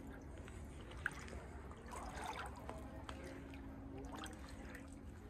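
Floodwater gently sloshing and trickling, with a sharp click about a second in.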